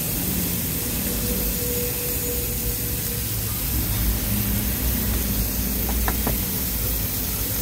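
Steady hissing sizzle of steak chunks searing on a gas grill, with a low rumble underneath.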